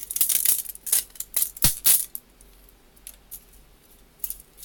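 3D-printed plastic support material being pried and snapped away from a printed part: a run of crisp crackles and clicks over the first two seconds, then a few scattered ticks and a short burst of clicks near the end.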